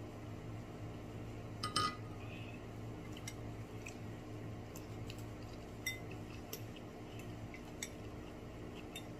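Tableware clinking and tapping during a meal: one louder clink with a short ring about two seconds in, then scattered light clicks and taps, over a steady low hum.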